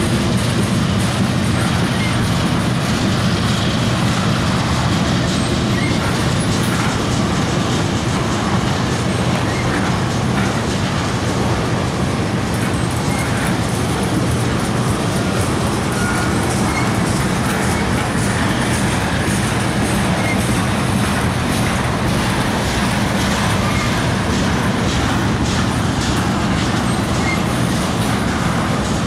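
Freight train of tank cars rolling steadily past: a continuous rumble of steel wheels on the rails, with faint scattered clicks.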